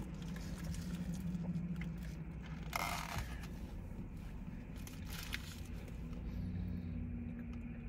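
Eating sounds: chewing and the crinkle of foil-lined burger wrappers being handled, with a few short rustles, the clearest about three seconds in, over a steady low hum.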